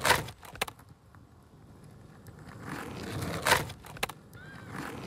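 Small plastic wheels of a toy skateboard rolling across a hard floor, a swelling rolling noise with a few sharp clacks, the loudest about three and a half seconds in.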